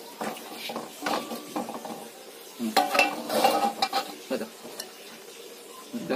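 Metal spoon and spatula scraping sticky soy-sauce chicken out of a metal wok into a glass bowl: irregular scrapes and clinks of utensils against the pan and bowl, busiest about three to four seconds in.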